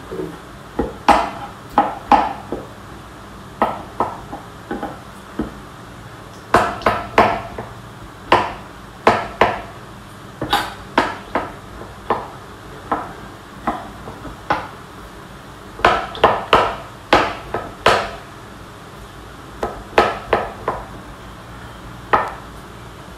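Kitchen knife chopping canned whole peeled tomatoes on a cutting board: irregular sharp knocks, single or in quick runs of two or three, each with a short ring.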